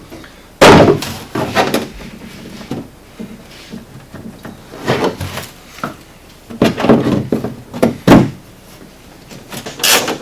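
Hand-tool work on a UTV's plastic center console: several separate knocks and clunks as push-pin fasteners and panel parts are worked loose, the loudest about half a second in. Near the end comes a fast run of ratchet clicks.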